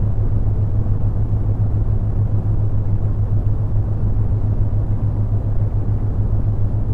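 Brown noise: a steady, deep rushing hiss, heaviest in the bass, with a steady low tone near 100 Hz underneath from the theta-wave binaural beats.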